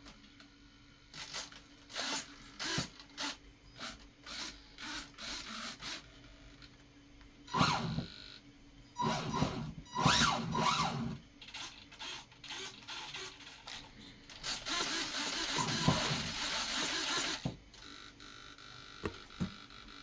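Model-airplane servos whirring in short, repeated bursts as the control surfaces are moved from a pistol-grip transmitter, with a few louder whining bursts midway and a longer, noisier whir of about three seconds near the end.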